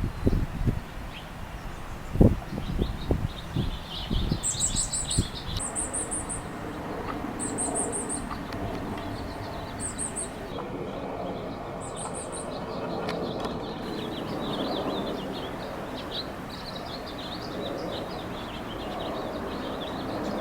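Small birds chirping. A short, very high buzzy trill repeats five times over about eight seconds, and low thumps on the microphone come in the first few seconds.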